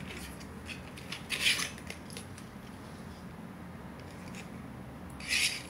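Small cardboard box and a metal perfume spray valve being handled: two brief scraping rustles, one about a second and a half in as the valve comes out of the box and a louder one near the end.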